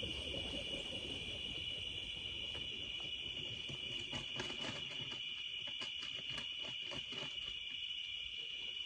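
A steady, high-pitched chorus of night insects trilling without a break. From about four to seven seconds in, a run of soft, quick clicks and rustles sounds over it.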